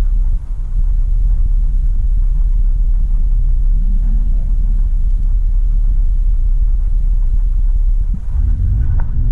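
Steady low rumble of a 2007 Toyota Sienna minivan driving, the road and engine noise heard from inside the moving van.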